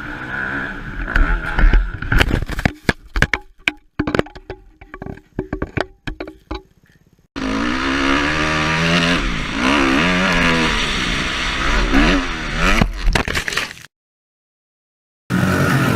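A dirt-bike engine running, then a quick run of sharp knocks, cracks and scrapes that thins out over a few seconds as the bike goes down. After a cut, a motocross bike engine revs up and down. The sound cuts out near the end.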